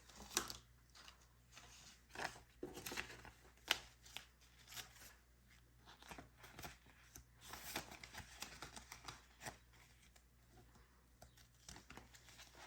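Paper banknotes being handled and shuffled: soft, irregular rustles and flicks as bills are counted and swapped.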